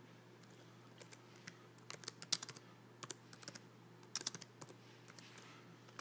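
Computer keyboard being typed on: an irregular run of key clicks in quick bursts, typing out a short message.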